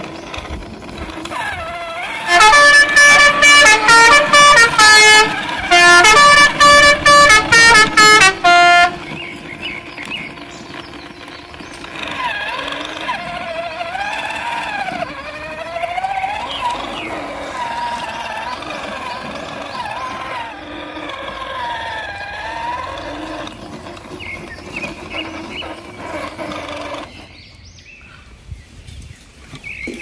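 A horn honking in two quick runs of short, loud blasts, each a few seconds long. It is followed by a quieter sound that wavers up and down in pitch.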